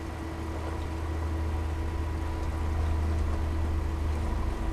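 Steady hum of an 1100-gallon-per-hour water pump, with water running down a small gold cleanup sluice.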